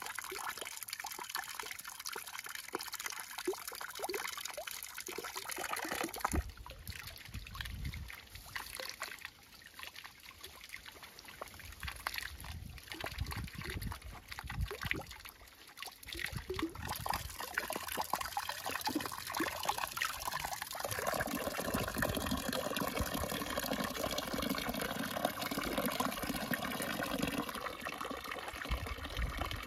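Water trickling and pouring from a clay jug spout into a small stone pool, with splashing as eggplants are handled in the water. The pouring grows steadier and louder about two-thirds of the way through.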